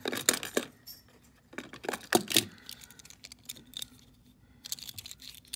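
1:64 die-cast metal toy trucks clinking and clattering against one another and against fingers as they are picked up and turned over, in three short spells: near the start, about two seconds in, and near the end.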